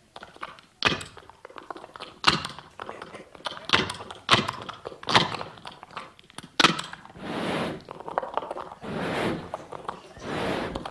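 Mouth-made sound effects of a man miming climbing onto a truck: a series of sharp, irregularly spaced thunks and knocks, then three longer rushing noises near the end.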